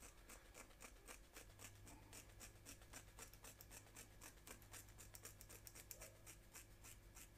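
Scissors snipping through a bundle of old monofilament fishing line, a faint rapid run of sharp snips about five a second, cutting it into short lengths.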